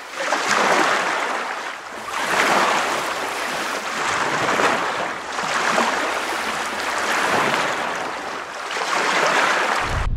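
Ocean waves washing in, swelling and fading every second or two, then cutting off suddenly near the end.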